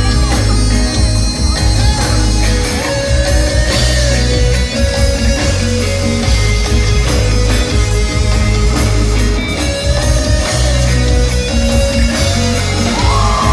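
Live reggae band playing loudly: electric guitar over strong bass and a steady drum beat, with no singing in this passage.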